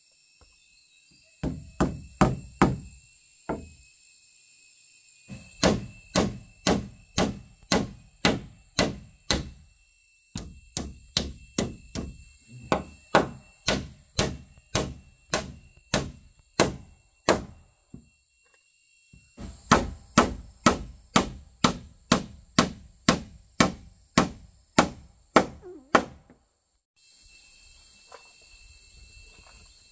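Heavy blows on wood, about two a second, in four runs with short breaks between them. Under them runs a steady high buzz of insects.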